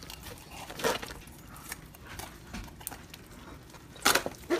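Knife and hands carving a whole grilled chicken on a plastic cutting board: soft cutting and tearing with a few short crunches and knocks, the loudest pair near the end.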